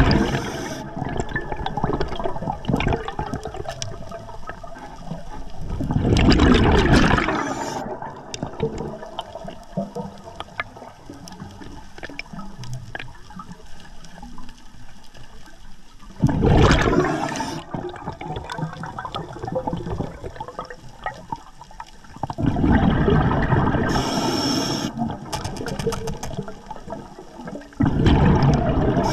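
Scuba diver breathing underwater through an Atomic regulator: each exhalation sends out a gurgling rush of exhaust bubbles lasting about a second or two. The rushes come five times, several seconds apart, with a faint crackle between them.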